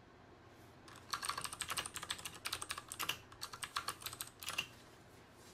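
Typing on a computer keyboard: a rapid run of light key clicks that starts about a second in and lasts about three and a half seconds.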